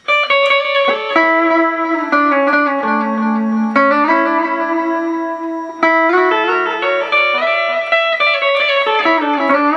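Electric guitar on a clean amp tone, picked notes and chords ringing into one another, played through a Behringer DD400 digital delay pedal set to 500 ms repeats.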